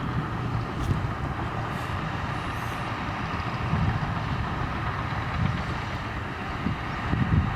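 Komatsu crawler bulldozer's diesel engine running steadily, growing louder near the end.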